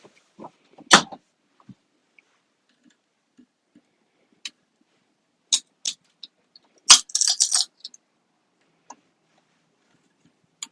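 Metal tools and parts clinking and knocking during hand work on a battery module: scattered clicks, a sharp knock about a second in, and a loud clank about seven seconds in followed by a brief metallic jangle.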